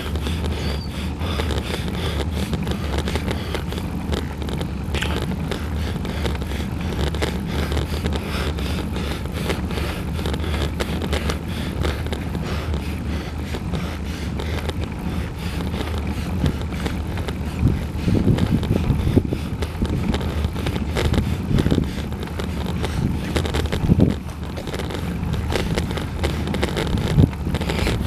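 Wind rushing over the microphone of a camera on a moving road bike, mixed with tyre and road noise. It grows louder and more uneven in the second half, with sharp buffets and bumps.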